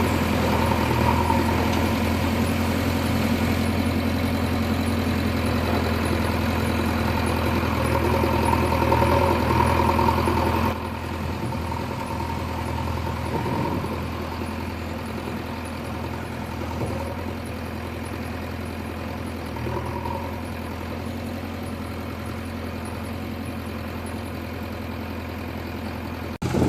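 Heavy diesel engine running steadily, louder for the first ten seconds or so and then dropping to a quieter, lower running.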